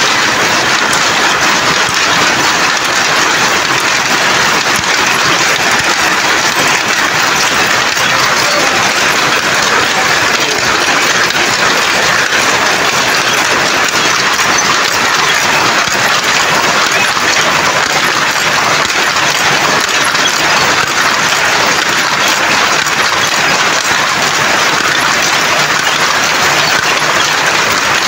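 Weaving looms clattering together in a sari-weaving shed: a loud, steady, dense rattle of rapid clacks with no pauses.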